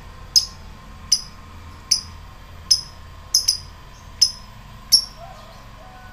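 Lovebird giving a series of short, sharp, high single chirps, about one every second, with two in quick succession about halfway through. These are the ticking 'ngetik' calls that lovebird keepers treat as the lead-in to the bird's long chattering trill, the 'ngekek'.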